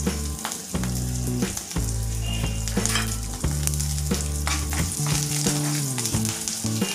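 Tempering of spices, coriander and curry leaves sizzling and crackling in hot oil in a nonstick kadai, with a spatula stirring it near the end. Low background music runs under it.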